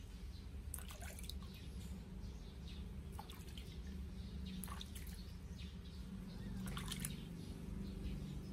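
Water dripping and splashing lightly in a basin as a newborn kitten is washed by hand, with a few small splashes about a second in, near the middle and around seven seconds, over a steady low hum.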